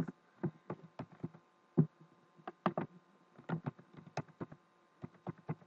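Computer keyboard keys tapped in short, irregular runs as digits are typed in, over a faint steady electrical hum.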